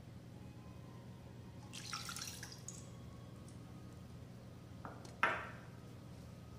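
Half a bowl of water poured into an empty nonstick kadai, a brief splash about two seconds in. A single short sharp sound follows about five seconds in, over a steady low hum.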